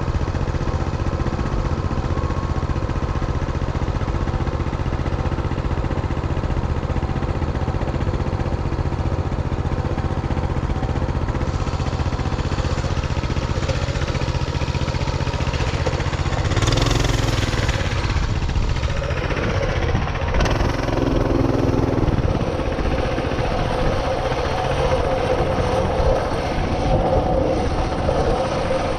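Motorcycle engine running steadily while riding along a dirt trail. The note shifts and grows louder for a few seconds just past the middle, then settles again.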